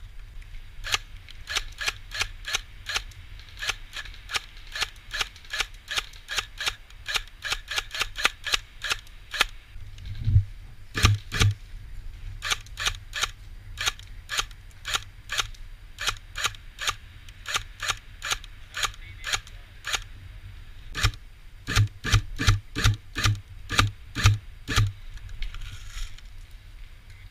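Airsoft guns firing single shots in quick succession, sharp clicks a few a second with short pauses; some shots come with a dull thud.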